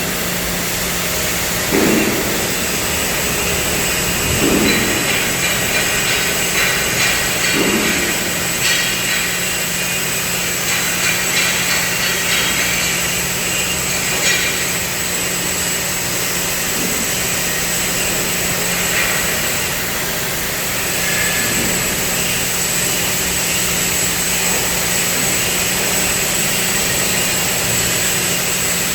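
Steady industrial machine noise: a constant hum under a loud hiss, with a few dull knocks in the first eight seconds.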